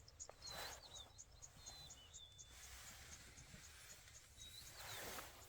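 Faint bush ambience: small birds giving short high chirps and whistles over a steady fast insect ticking, about five ticks a second, with two soft rushes of noise, about half a second in and near the end.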